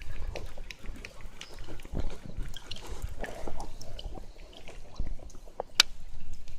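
Water sloshing and dripping close by, with many small scattered clicks and knocks; a sharper click comes near the end.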